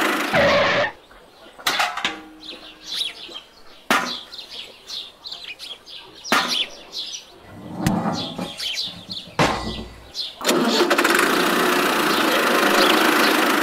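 Tractor engine running, cutting off within the first second and running again from about ten seconds in. In between come sharp clicks and knocks of small metal buckets being handled and set down, with bird chirps.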